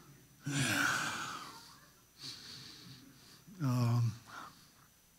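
A man breathing heavily into a microphone: a long breathy exhale about half a second in, then a short hummed vocal sound near four seconds.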